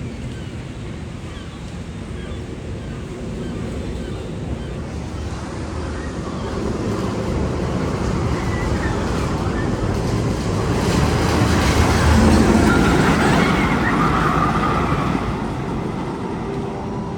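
A rushing, rumbling roar, like wind or a passing ride, that swells over several seconds, peaks about twelve seconds in, then fades.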